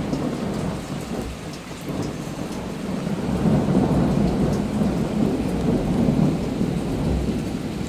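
Long rolling thunder rumble that builds about two and a half seconds in and eases toward the end, over steady rain.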